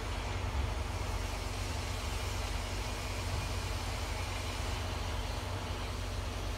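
Steam locomotive and brake van moving slowly through a rail yard at a distance: a steady low rumble with an even hiss above it and a faint constant hum, no separate exhaust beats standing out.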